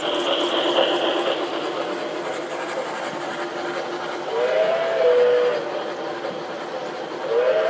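Three-rail model steam train running past with a steady rolling rumble of its wheels on the track, and its steam whistle sounding twice: one blast of about a second a little past the middle, and a second near the end, each a chord of several tones.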